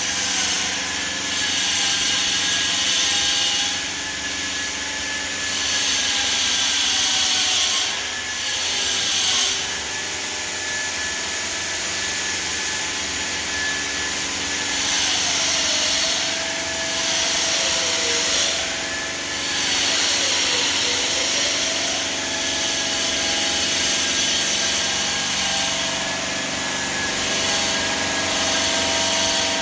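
CNC bridge saw's diamond blade cutting 20 mm black granite: a steady grinding hiss with a motor whine that dips in pitch and recovers every few seconds as the blade takes the curve.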